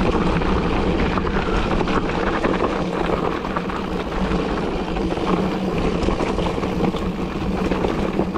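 Wind buffeting the microphone over the steady rumble of a mountain bike's tyres on a singletrack trail.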